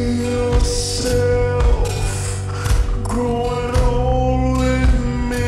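Slowed-down pop song with heavy reverb: a singing voice holding long, drawn-out notes over bass and drum hits.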